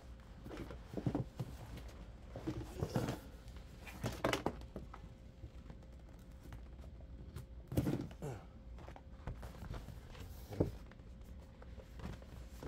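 Scattered knocks, thumps and rustles from objects being handled by hand, over a faint steady hum.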